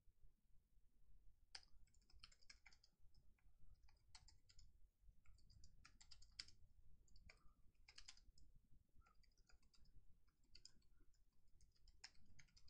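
Faint typing on a computer keyboard: irregular runs of keystrokes, starting about a second and a half in.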